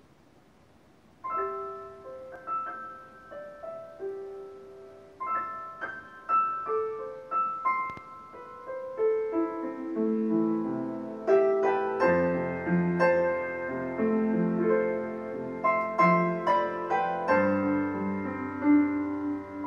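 A piano intro to a recorded song, played through Mordaunt-Short MS 902i bookshelf speakers in a small room. It starts about a second in with single notes, grows into fuller chords, and a low bass line joins about halfway through.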